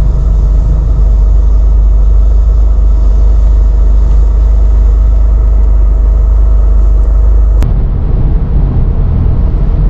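Porsche 930 Turbo's air-cooled turbocharged flat-six and road noise heard from inside the cabin while cruising, a loud steady rumble with a steady mid-pitched tone. About three-quarters of the way in a sharp click comes, and the sound changes abruptly: the tone drops away and the rumble turns uneven.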